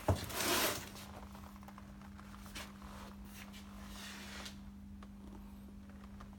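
Quiet room tone: a brief rustle in the first second, then a steady low electrical-sounding hum with a few faint clicks.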